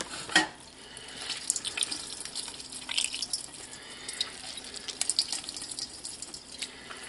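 Water squeezed from a handful of blanched spinach, dripping and trickling through a stainless steel colander into the pot beneath, with wet squelches and scattered light clicks of hands against the colander.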